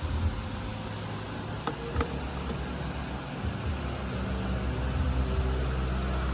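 A steady low mechanical hum, with a few light clicks about two seconds in.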